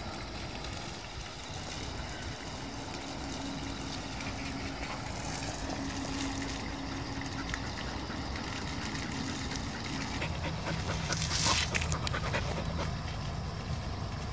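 Labrador Retriever puppy panting as it lies and rolls on the ground, with a short scraping rustle late on.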